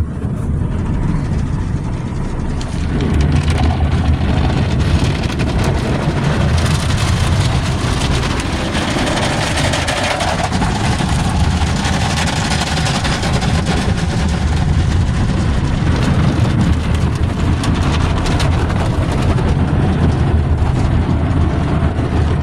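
Automatic car wash heard from inside the car: water spray and rotating brushes working over the glass and body make a loud, steady wash of noise over a low rumble.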